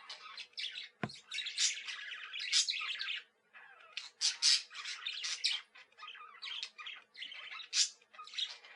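Sun conures giving harsh, high screeching calls in quick succession, several birds overlapping with only brief pauses. A single low thump about a second in.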